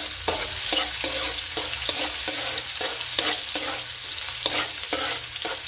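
Sliced ginger sizzling in hot oil in a metal wok, stirred with a metal ladle that scrapes and clicks against the pan about twice a second.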